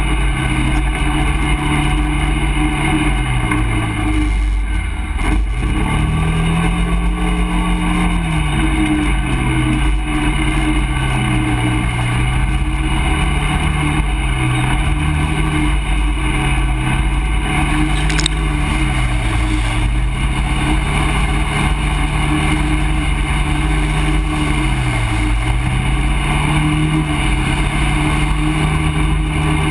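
ATV engine running under way on a muddy trail, its revs dipping and rising again several times as the throttle is eased off and opened up, over a steady low rumble. A brief tick about two thirds of the way through.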